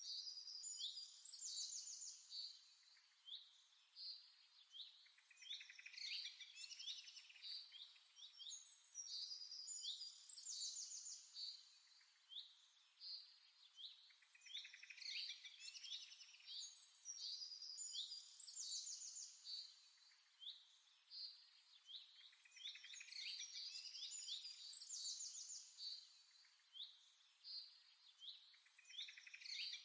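Small birds chirping and twittering: a steady run of quick high chirps and short trills, faint, with no other sound under it.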